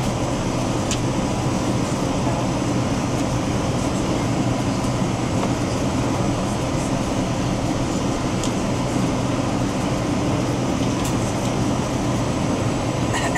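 Steady jet cabin noise inside a Boeing 787-9 on approach: engine and airflow rumble with a low hum, heard from a window seat beside the wing.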